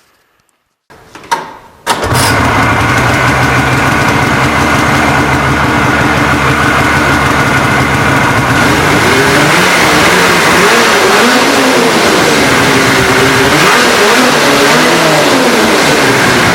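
A 2013 Polaris RMK Assault snowmobile's two-stroke engine is cranked and catches about two seconds in, then runs loudly and steadily through an aftermarket GGB mountain can exhaust. In the second half its pitch rises and falls a little.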